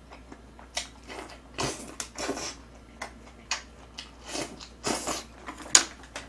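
Close-up eating sounds: irregular bursts of chewing as a mouthful of kimchi greens is eaten with chopsticks, with one sharp click near the end.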